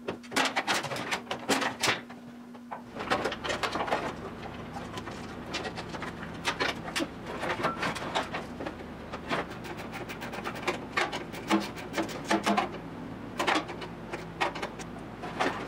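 Irregular rustling, clicking and clattering of a 1972 Triumph GT6's wiring harness, its wires and connectors being tugged and worked free from behind the dashboard and knocking against the metal body. A low steady hum comes in about three seconds in.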